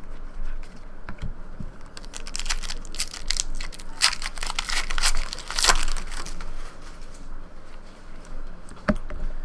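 Crinkling and crackling of trading-card packaging being handled, dense for a few seconds in the middle.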